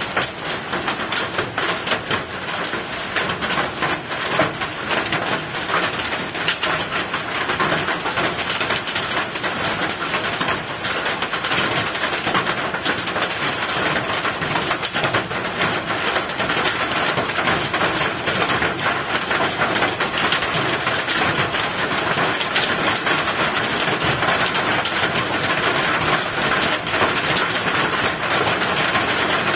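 Hail and heavy rain pelting down: a dense, steady clatter of countless small impacts over a rushing hiss, growing slightly louder.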